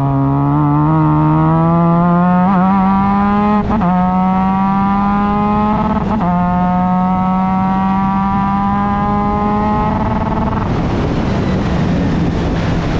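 Formula Mazda race car's rotary engine accelerating hard, its pitch climbing steadily, with quick upshifts about 4 and 6 seconds in. A few seconds before the end the steady note breaks up into a rough, ragged sound as the throttle comes off, then settles back into a steady note.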